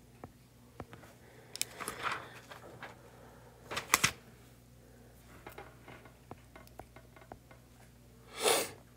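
Stylus tapping and scraping on an iPad's glass screen while writing: scattered light ticks, with louder clacks about two and four seconds in and a short hiss-like rustle near the end.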